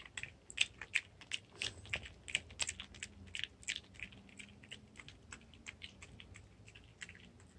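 Shih Tzu crunching raw broccoli, a quick irregular run of crisp crunches that thins out near the end.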